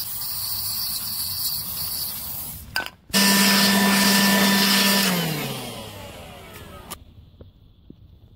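Aerosol cleaner hissing for nearly three seconds. Then, after a short pause, a small electric power tool switches on loudly, runs steadily for about two seconds and spins down with falling pitch after it is switched off.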